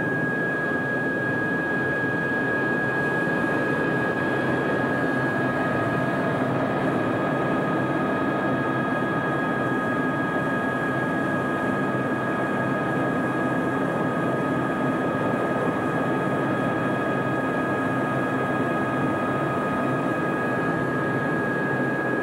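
Squirrel AS350B helicopter's turboshaft engine and rotor running steadily: a constant high whine over an even rushing noise.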